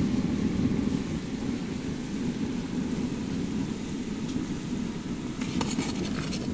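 A pot of cornelian cherry jam at a full boil under a layer of foam, heard as a steady low rumble. A few light clinks come near the end as a slotted spoon goes into the pot.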